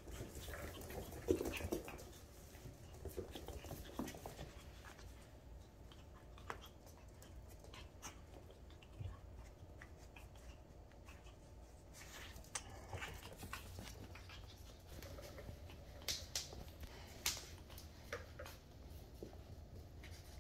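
A litter of young puppies playing, with faint puppy vocal sounds, the loudest about a second in, and scattered light clicks and scuffles, a few sharp clicks near the end.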